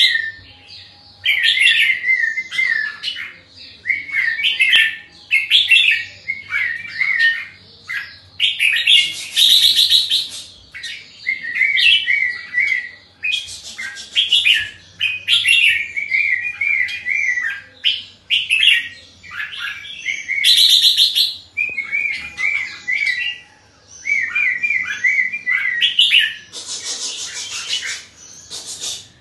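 Red-whiskered bulbul singing, short chirpy warbled phrases repeated every second or two. Three brief hissing bursts break in, around a third, two thirds and near the end.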